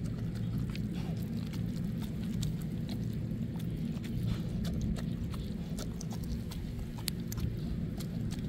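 A dog eating from a bowl, mouth in the food: wet chewing and smacking with many irregular sharp clicks as its teeth and muzzle knock the bowl, over a steady low rumble.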